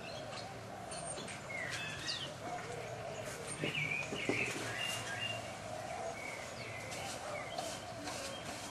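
Pacific Black Duck ducklings peeping in short, scattered chirps, most of them in the first half, over a steady background hum.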